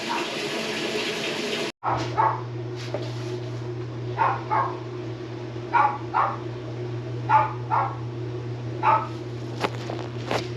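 A dog barking in pairs of short barks, one pair about every second and a half, over a steady low hum.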